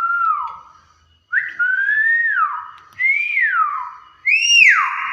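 Hill myna whistling: a run of clear whistles, each rising and then dropping sharply, the last one highest and loudest.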